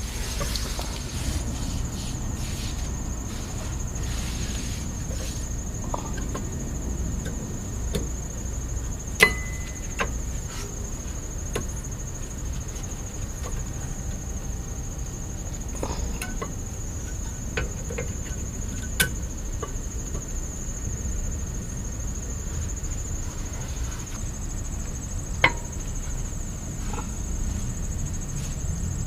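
Metal brake parts and tools being handled during a rear brake pad change: a few sharp metallic clicks spread far apart, over a steady high-pitched insect-like chorus and a low hum.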